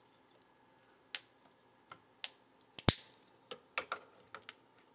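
Irregular clicks and taps of hands and a tool working a PLA print loose from a 3D printer's bed, with one sharper knock about three seconds in.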